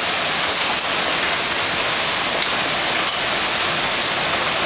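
Hailstorm with heavy rain: a dense, steady hiss of hail and rain pelting down outside, with a few sharp clicks of single hailstones striking hard surfaces.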